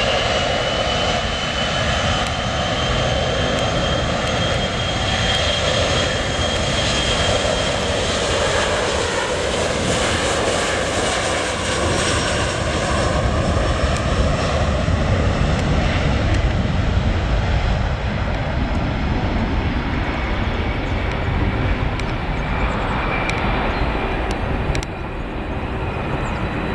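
Boeing 737-300's CFM56-3 turbofan engines at takeoff power during the takeoff roll. A whine rises in pitch near the start as the engines spool up, then holds steady over a loud, continuous jet noise that fades slightly near the end as the aircraft draws away down the runway.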